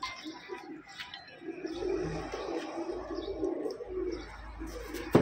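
Domestic pigeons cooing in a loft: a continuous run of low, wavering coos.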